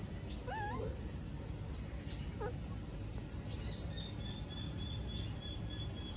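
Baby monkey calling: a short wavering squeal about half a second in, then a brief falling call near the middle, over steady low background noise.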